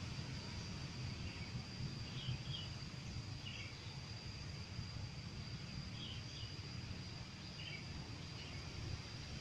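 Outdoor ambience: a steady high-pitched insect drone, with short bird chirps several times, over a low steady rumble.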